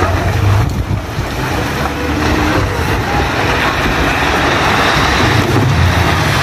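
Steady rumbling roar of a landslide as earth and debris pour down the hillside, with a low hum underneath, growing a little louder after the first couple of seconds.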